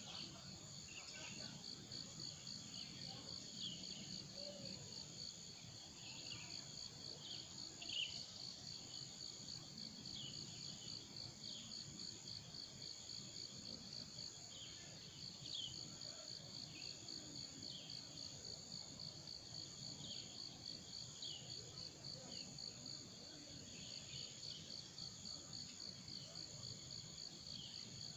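Steady insect chorus, crickets trilling in a fast, even pulse, with short falling chirps every second or two over a low background rumble.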